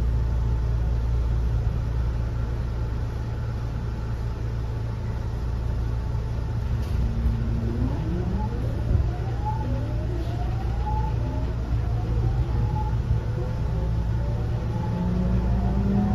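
Low hum inside a JR 207 series motor car standing at the platform. About seven seconds in, its Mitsubishi power-transistor VVVF inverter starts as the train pulls away: a whine that rises in pitch in several overlapping glides as the train accelerates.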